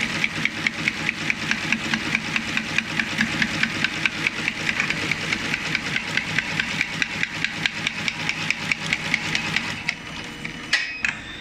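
Broom brush tufting machine running: its head punches bristle tufts into the broom block with a rapid, even clacking of about five or six strokes a second over a steady machine hum. The clacking stops about ten seconds in, followed by a couple of separate clanks.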